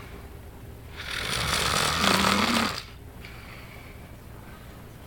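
A man snoring. One long snore begins about a second in and lasts nearly two seconds, ending in a low buzz, then a quiet pause before the next snore starts near the end.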